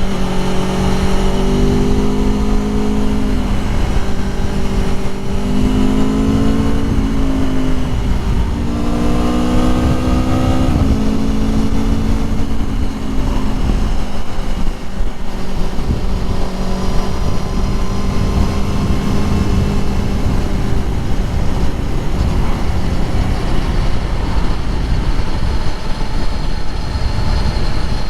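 Aprilia Tuono V4 Factory's V4 engine under way. Its pitch climbs through the revs and drops back sharply several times in the first ten seconds or so, then holds steadier, under heavy wind and road noise.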